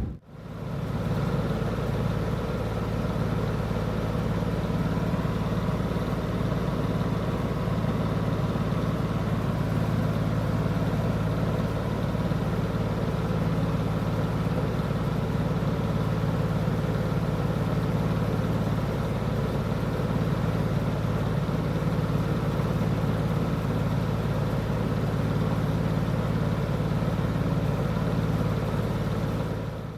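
Emerson 746310-AR metal box fan running steadily: a constant motor hum under the rush of air from the blades.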